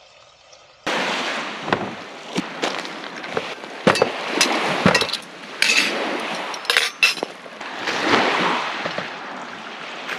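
Plates, pots and cutlery clinking as they are set down on a camp table: many sharp clinks scattered through, over a rushing noise that starts suddenly about a second in.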